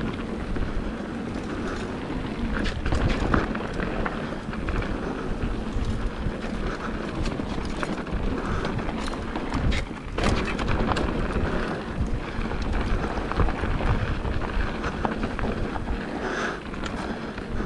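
Mountain bike rolling down a dirt trail: a constant rough rumble of tyres on dirt and rock, with frequent knocks and rattles from the bike over bumps.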